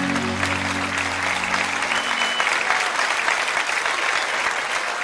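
Applause, many hands clapping, rising over the tail of the closing music, whose held low notes fade out about two seconds in and leave the clapping alone.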